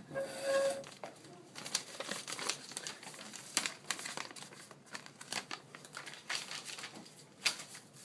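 A sheet of paper being handled and unfolded, crinkling and rustling in irregular crackles. A short pitched tone sounds about half a second in.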